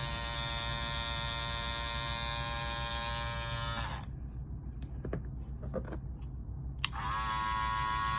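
Andis Master Cordless hair clippers running with a steady buzz. One clipper is switched off about four seconds in. A few clicks follow, then the other clipper is switched on near seven seconds and runs steadily.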